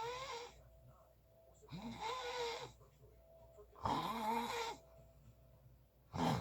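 Loud, rough snoring of a sleeper, with four snores about two seconds apart, each with a wavering pitched buzz under the rasp.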